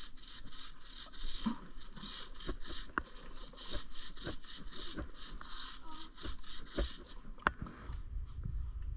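Chain-cleaning brush scrubbing a dirty dirt bike chain in quick back-and-forth strokes, about three a second, that stop near the end.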